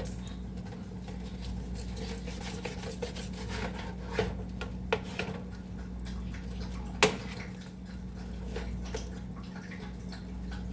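Kitchen work sounds: a scatter of small clicks and three sharper clinks or knocks of dishes and utensils, the loudest about seven seconds in, over a steady low hum.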